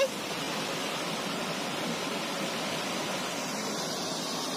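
Steady rush of a waterfall, an even hiss with no breaks.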